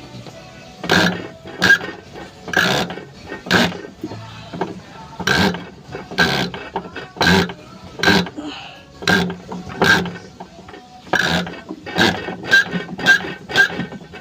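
Irregular series of sharp metal knocks and clinks, about one a second and faster near the end, each with a brief ring.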